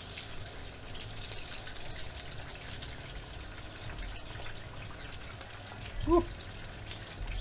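Hot oil bubbling and sizzling steadily in a stockpot as beer-battered chicken deep-fries, with a short vocal sound about six seconds in.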